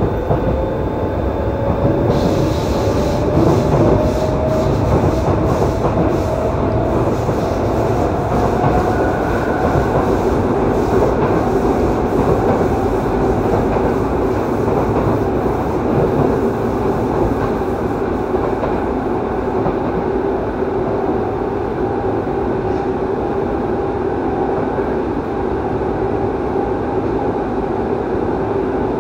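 Yokohama Municipal Subway 3000A train's Mitsubishi GTO-thyristor VVVF inverter and traction motors, heard from inside the passenger car. A whine rises steadily in pitch over the first twenty seconds or so as the train gathers speed, then levels off. Underneath is a steady wheel-and-rail rumble, with a run of sharp clicks in the first ten seconds.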